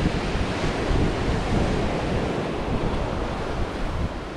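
Ocean surf breaking and washing up the shore, with wind buffeting the microphone.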